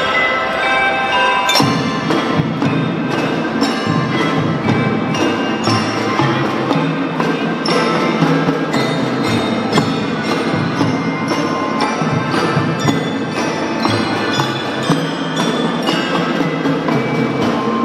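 Drum band playing a tune, led by mallet percussion (xylophones and glockenspiel-type bells) ringing out the melody. About a second and a half in, the fuller band with bass drum and snare drums comes in under them.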